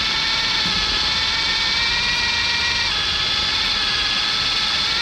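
A small electric motor whining steadily, its pitch stepping slightly lower about three seconds in.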